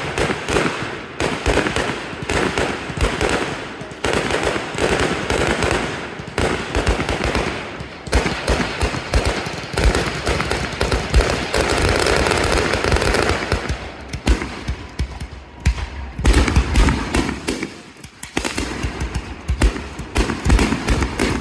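Aerial fireworks going off in a dense barrage: rapid, overlapping bangs and crackling from shells and rising comets bursting overhead, with heavier low booms a little after the middle and brief lulls between volleys.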